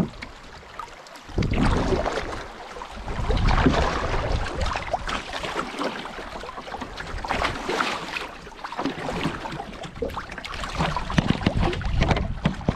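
Fast, shallow water of a small rapid rushing and splashing against the hull of a wooden strip canoe as it runs downstream. It starts loud about a second in and stays a rough, crackling rush with a heavy low rumble.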